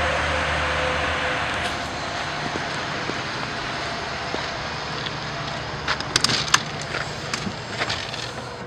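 A vehicle engine running steadily with a low hum, and a few sharp clicks about six seconds in.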